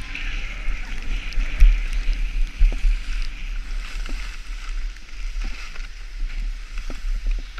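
Skis sliding and scraping over snow on a downhill run, a steady hiss, with wind buffeting the microphone in a gusting low rumble and a few thumps, the loudest about one and a half seconds in.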